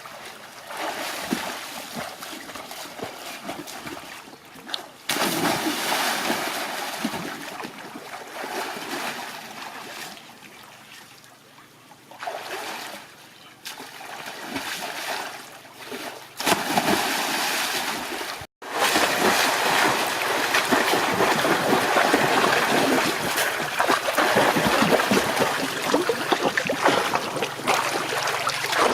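Water splashing and trickling in several abruptly cut stretches, heaviest and most continuous in the last third.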